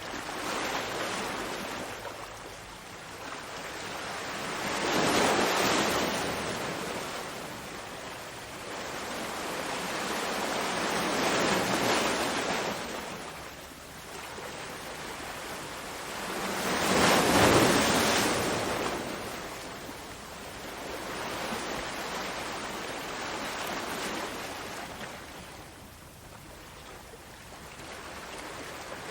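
Ocean waves breaking and washing in, surging and fading in slow swells every several seconds; the loudest swell comes a little past the middle.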